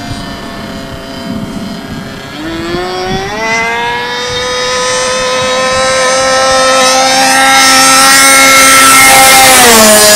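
Radio-controlled P-51 Mustang model plane's motor and propeller at full speed, rising in pitch about two seconds in and growing steadily louder as it closes in, then dropping in pitch near the end as it passes by.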